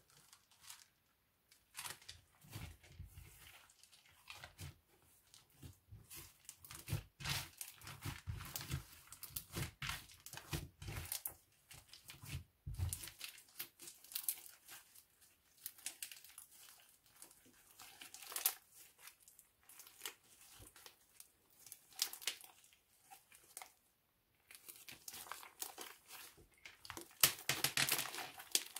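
Hands stretching, folding and squeezing homemade black slime made from glue, shoe cream, shaving foam and detergent, and studded with small silver beads. The slime gives a dense, irregular run of sticky crackles and small pops, with a short pause about three-quarters of the way through.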